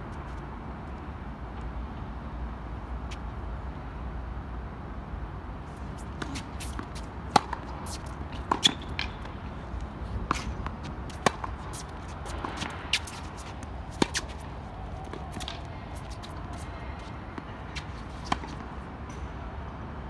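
Tennis ball being struck by rackets and bouncing on a hard court: a string of sharp, irregularly spaced pops starting about six seconds in, over a steady low background rumble.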